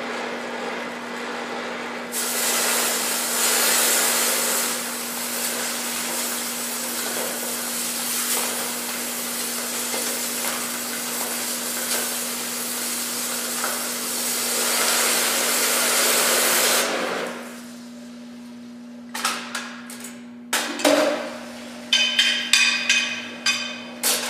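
DHC2000 oxy-acetylene torch cutting steel. Its flame hisses, turns to a louder steady rushing hiss about two seconds in, and cuts off abruptly well past halfway. Near the end come several sharp metallic knocks and clinks of steel pieces being handled on the metal table.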